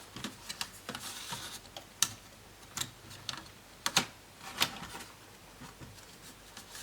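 Irregular sharp clicks and taps of plastic laptop casing parts and tools being handled during disassembly, the loudest about two and four seconds in.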